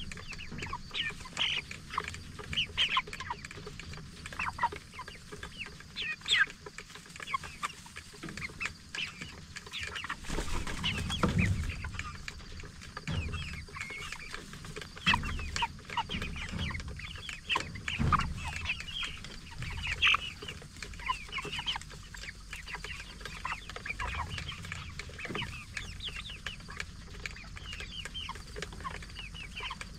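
A flock of Cornish Cross broiler chickens calling continually, many short high peeps and clucks overlapping, with a few low thumps among them.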